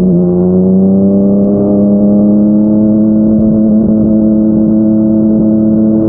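Yamaha MT-09's three-cylinder engine through a Yoshimura R55 slip-on exhaust, pulling under steady throttle. Its note climbs slowly and evenly in pitch after a small step right at the start.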